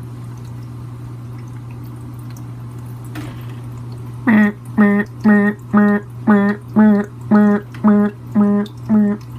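A steady low hum, then from about four seconds in a voice-like sound repeated about ten times, about two a second, each one short and on the same pitch: a comic voiceover giving the goldfish a noise.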